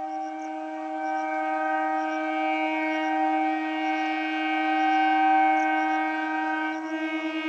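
Horn of an Indian Railways Electric Multiple Unit local train, sounded in one long, loud, steady note; near the end it changes to a rapid pulsing, about four beats a second.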